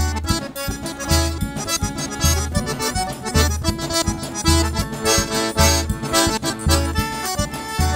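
Forró trio playing the instrumental opening of a xaxado: a piano accordion carries the melody over a zabumba bass drum beating about once a second and a triangle ringing steadily.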